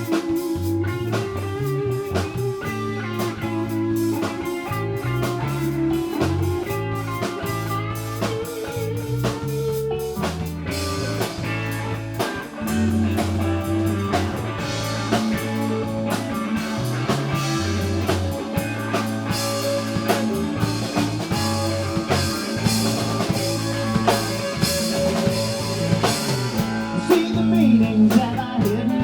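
A rock band playing an instrumental passage: electric guitar over a stepping bass line and drum kit, getting fuller and brighter about a third of the way in.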